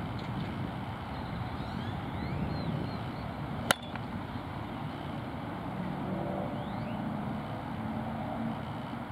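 A single sharp crack of a bat hitting a softball off a batting tee, a little over a third of the way in. It sits over a steady rumble of distant road traffic, with a few faint bird chirps.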